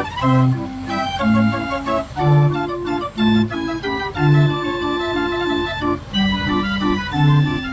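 Mechanical street organ, a pipe organ playing from book music, playing a tune: held melody notes over a bass note on about every beat, roughly once a second.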